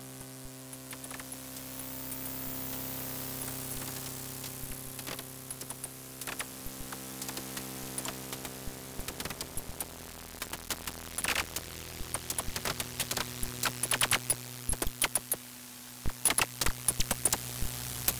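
A steady low drone with hiss, overlaid by sharp clicks and taps. They start sparse a few seconds in and build into a fast, dense clatter toward the end.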